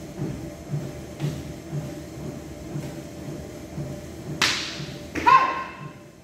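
A karate kiai: one loud, short shout about five seconds in, just after a sharp swish, over background music with a steady beat of about two pulses a second.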